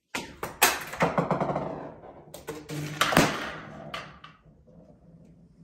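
Golf ball rattling down a flexible aluminium foil duct and knocking into a small plastic toy car, with sharp clacks and a loud bang as the car hits a balloon and pops it; the clatter dies away after about four seconds.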